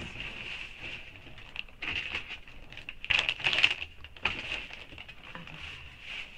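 Rustling and crinkling of packaging as things are handled in a cardboard box, in irregular short bursts, loudest about three seconds in.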